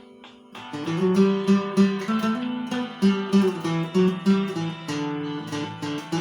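A Christian hymn tune played with a guitar sound: a plucked melody over lower bass notes. After a short fading lull, the phrase starts again under a second in.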